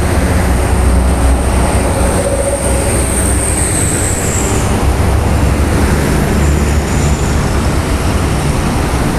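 Heavy road traffic rumbling steadily, with a faint high whine that dips and fades about four and a half seconds in.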